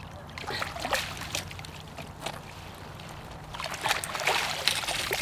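Water splashing and sloshing as a hooked carp is drawn over a landing net at the lake's edge, then water pouring and dripping off the net as it is lifted out with the fish, louder near the end.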